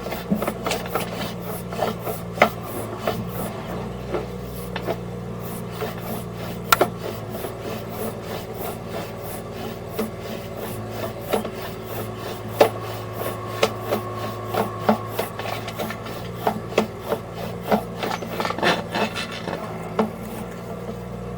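Sewer inspection camera's push cable scraping and rubbing with irregular clicks and knocks as it is fed through the drain line, over a steady low hum.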